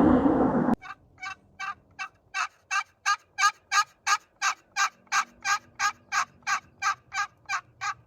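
A loud rush of noise cuts off abruptly under a second in. Then comes a long, even series of turkey yelps, about three a second, building in loudness over the first few yelps and then holding steady.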